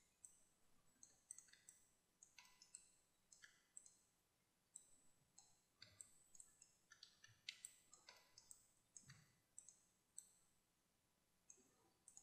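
Faint, irregular clicks of a computer mouse and keyboard being worked, a few per second, over near silence.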